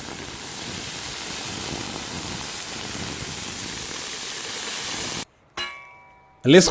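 Steady hiss of steam as water hits the fire-heated steel armour plate and campfire, cutting off abruptly about five seconds in. A short metallic ringing clink follows near the end.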